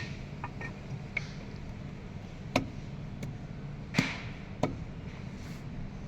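A few sharp metallic knocks and clinks, spaced irregularly, from hand tools and parts handled on a metal engine during head-gasket work, over a steady low hum.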